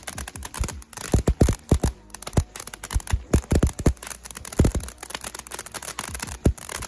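Small 'Crickets' fountain firework burning: a steady hiss of spray with dense, irregular crackling pops.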